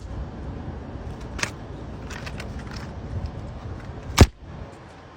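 Package being opened and handled: scattered light clicks and rustling, with one sharp, loud snap about four seconds in, over a low steady rumble.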